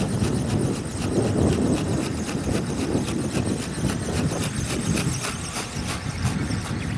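Wind buffeting the microphone, with a rapid, even ticking in the high range over it.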